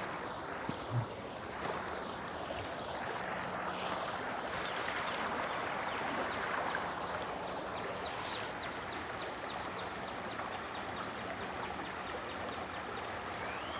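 Steady rushing of a small woodland stream, with a few light snaps and clicks underfoot.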